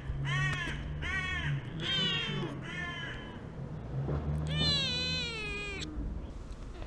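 Stray cat meowing: four short meows in quick succession, then one longer, wavering meow a little past the middle.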